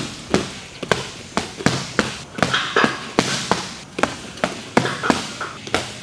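Boxing gloves landing a steady run of punches in quick one-two combinations, sharp slaps about two to three a second.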